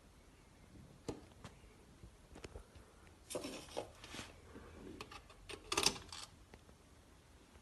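Handling noise and scattered clicks and rubbing, then a mains plug pushed into a wall socket, the loudest sound, about six seconds in.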